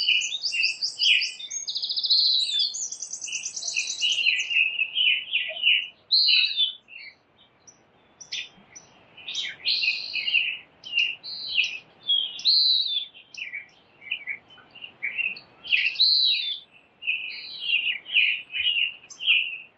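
Small birds chirping and calling, several at once in quick, overlapping chirps and buzzy trills at first, then a short lull and more scattered chirps.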